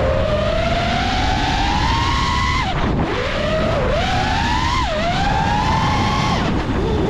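FPV quadcopter's brushless motors and propellers whining. The pitch climbs steadily, drops sharply just under three seconds in, then rises and falls several more times as the throttle is worked, over a steady low rush of wind.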